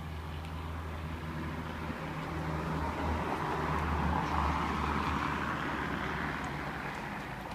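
A passing vehicle: a rushing noise that swells for a few seconds and fades, over a steady low hum.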